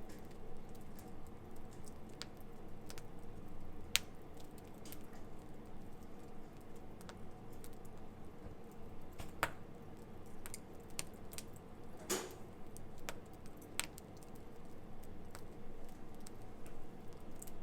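Wood campfire crackling, with irregular sharp pops and snaps, the loudest about twelve seconds in, over the low steady noise of the burning fire.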